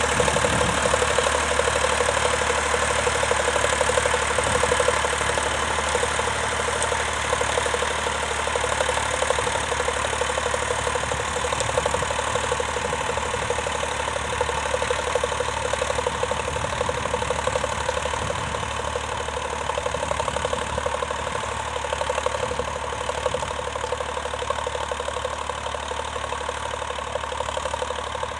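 Vintage tractor engine running steadily at low revs, slowly getting quieter.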